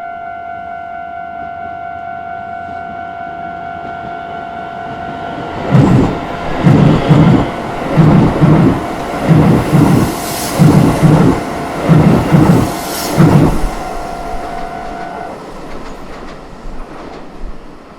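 Japanese level-crossing warning bell ringing steadily while a Keisei Chiba Line electric train passes, its wheels clattering over the rail joints in regular pairs for about eight seconds. The bell stops a little after the train has gone, and the train fades away.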